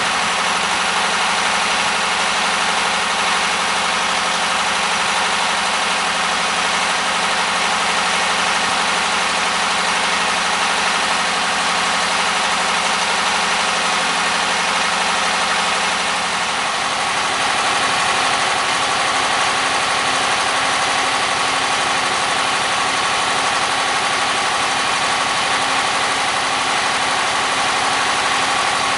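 MeMZ-969B air-cooled V4 engine running steadily at idle during its break-in after a full rebuild. Its note changes about halfway through, as the engine speed shifts slightly.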